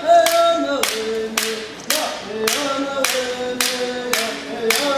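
A man singing a chant in long held notes, beating time with a wooden clapper stick struck about twice a second.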